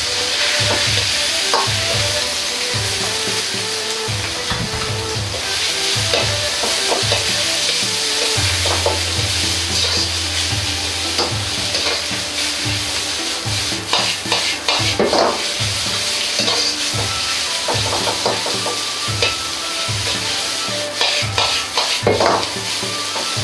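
Sliced bamboo shoots sizzling as they stir-fry in hot oil in a Chinese wok, with a metal ladle scraping and knocking against the wok. The shoots are tipped in at the start. The ladle knocks come thicker in the second half as the shoots are tossed.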